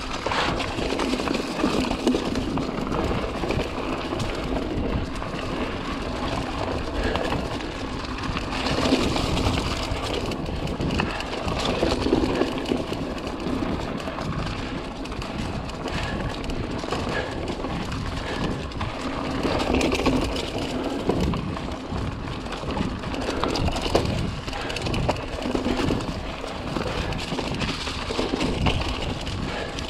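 Giant Stance 2 mountain bike riding along a dirt trail: steady tyre noise with frequent knocks and rattles over bumps, and rumbling wind on the microphone.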